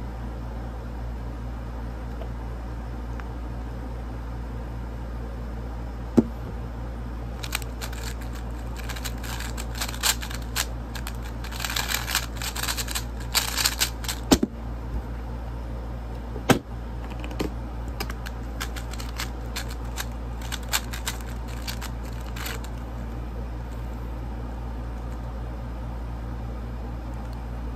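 Rapid plastic clicking and clacking of a QiYi Tornado V3 M magnetic speedcube's layers being turned, in dense bursts from about seven seconds in until past twenty seconds, with a few sharper single snaps. A steady low hum runs underneath.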